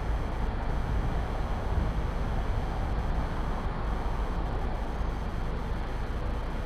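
Steady, unbroken hum of distant interstate traffic, with a low rumble underneath and no single vehicle standing out.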